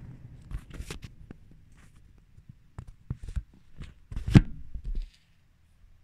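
Handling noise: scattered clicks and short rustles, with one sharp knock near the end, then near silence.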